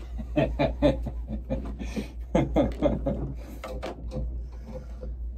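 People laughing in short bursts, the loudest about half a second in and again about two and a half seconds in, over a steady low hum.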